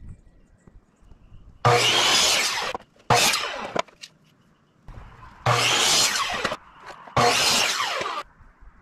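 Power saw cutting wood in four bursts of about a second each, with short pauses between them.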